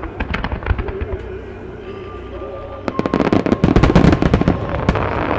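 Starmine fireworks barrage: rapid volleys of aerial shells bursting with bangs and crackle. It eases into a lull about a second in, then a dense run of bangs comes back from about three seconds in, with a rumbling echo after.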